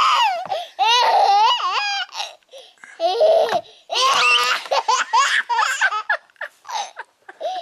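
A two-year-old toddler laughing in several bouts of high, quickly repeated laugh notes with short pauses between them.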